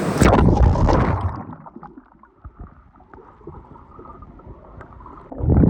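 Water splashing as the microphone is plunged into a river, then a faint, muffled underwater rumble with small ticks, and another loud splash near the end as it comes back up.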